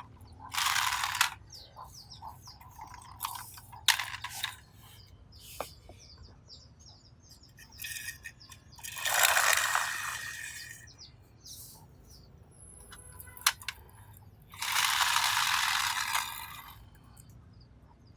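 Toy vehicles being handled: scattered sharp plastic clicks and knocks, with three longer bursts of scraping or rustling, each a second or two long, about half a second in, near the middle and near the end.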